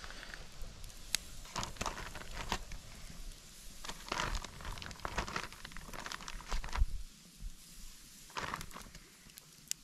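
Plastic meat packaging crinkling in short bursts as raw pork chops are pulled from it and laid on a wire campfire grill, with scattered small clicks and crackles.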